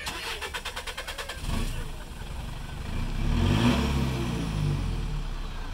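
Lifted pickup truck's engine being started: a rapid ticking of cranking for about a second and a half, then it catches and revs up and back down before settling.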